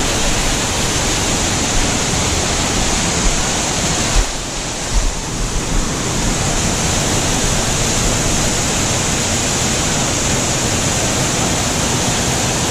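Loud, steady rush of water from the falls on Roaring Brook. There is a brief dip and a few low thumps about four to six seconds in.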